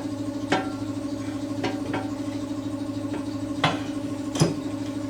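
Air compressor running steadily with a fast pulsing hum, while a tire is being aired up to seat its bead. Several sharp knocks sound over it, the loudest about four and a half seconds in.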